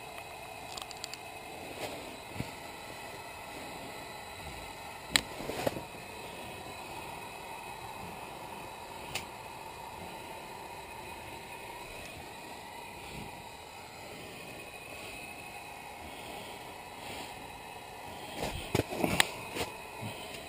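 Steady low hum and hiss inside a closed ice-fishing shelter, broken by a few sharp clicks and knocks. Near the end comes a short cluster of louder knocks and rustling as the angler shifts.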